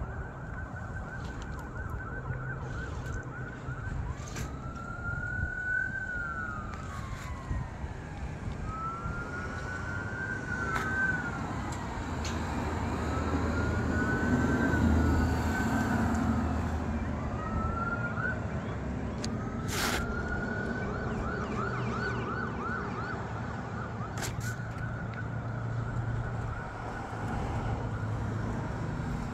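Emergency vehicle siren passing: a fast yelp that changes to slow rising and falling wails about four seconds in, then back to a fast yelp about twenty seconds in. Under it runs a low vehicle rumble, loudest midway, with a sharp click about twenty seconds in.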